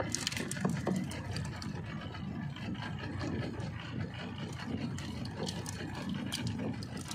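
Suzuki outboard motor running steadily at idle, with scattered light clicks and rattles over it.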